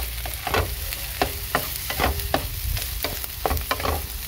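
Wooden spatula stirring and scraping fried rice in a hot frying pan, about three quick strokes a second, over a steady sizzle. The beaten duck egg is being tossed through the rice.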